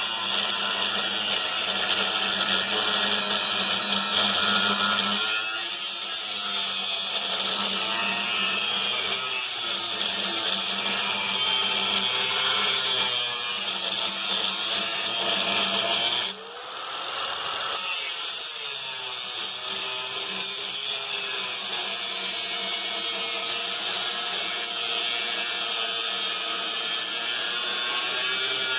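Power tool cutting into the steel body of a small safe, running steadily with a short drop in level about sixteen seconds in.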